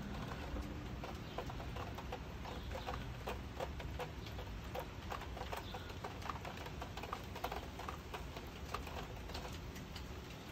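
Raindrops pattering and dripping in irregular taps, over a steady low rumble.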